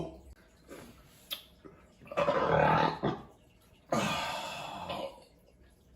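A man burping after a drink of beer: a long, loud burp about two seconds in, then a second, breathier sound that starts sharply and fades out.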